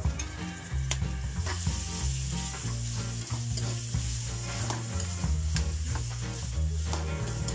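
Chopped shallots, garlic and tomatoes sizzling in hot oil in a wok, with a spoon stirring and scraping against the pan in short repeated strokes.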